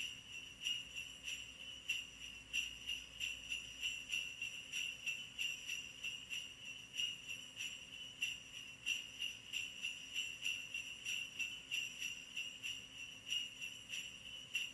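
Sleigh bells jingling in a steady rhythm, about three shakes a second.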